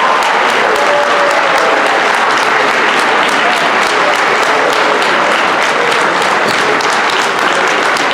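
Audience applauding steadily, a dense continuous clapping with a few voices mixed in.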